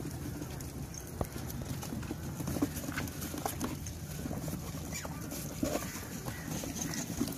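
A crowd of macaques scrabbling at and around a cardboard box of maize: irregular short scratches, taps and rustles, over a steady low background rumble.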